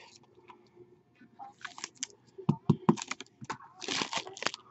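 Silver foil trading-card pack wrapper crinkling and rustling as it is handled, with a few sharp knocks about two and a half seconds in.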